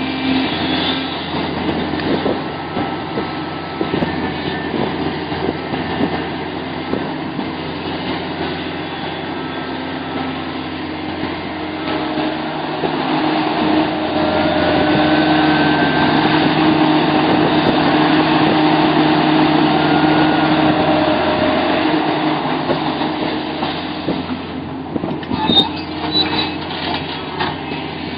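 Sumitomo SH700LHD-5 excavator's diesel engine running steadily, with brief rising and falling hydraulic whines; it grows louder for several seconds in the middle, and a few sharp knocks come near the end.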